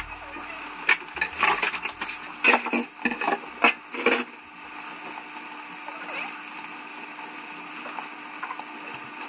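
Tap water running into a kitchen sink as leafy greens are rinsed and put into a plastic colander. A quick run of knocks and clatters from handling bowls and utensils comes in the first four seconds.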